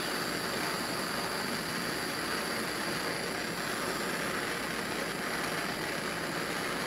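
Handheld gas torch burning with a steady hiss, its flame held on a copper cable lug to heat it for soldering.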